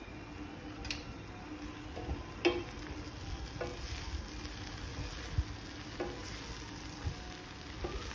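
Tondli and chana dal stir-fry cooking in a kadai: a low, steady sizzle, with a spatula stirring it and knocking against the pan about five times.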